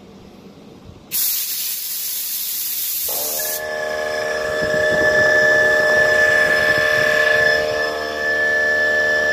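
Garage air compressor switched on: a loud hiss of air starts about a second in, then from about three seconds in the motor runs with a steady whine.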